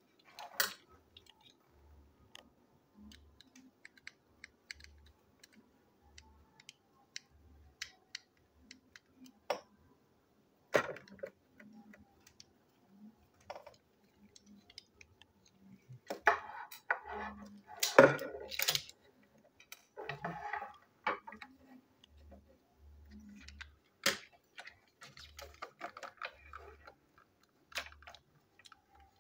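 Small clicks and plastic rattles from handling a toy train engine's plastic chassis while a screwdriver turns its tiny screws, with a denser, louder bout of handling a little past the middle.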